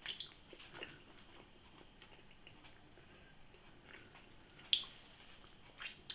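Faint chewing: small wet mouth clicks and crackles, with one sharper click about three-quarters of the way through.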